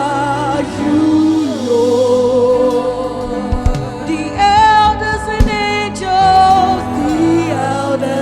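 Live gospel worship music: a voice holding long notes with vibrato over sustained keyboard and bass chords, with a couple of low thumps near the middle.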